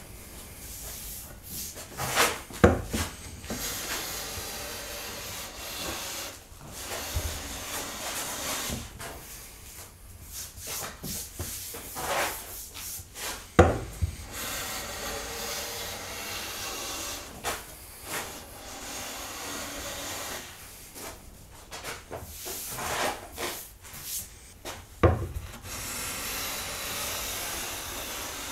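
Hand plane, a Clifton No. 4½ smoothing plane, taking shavings off an oak tabletop: repeated swishing strokes of the blade along the board, with pauses between them. Three sharp knocks stand out, near the start, about halfway and near the end.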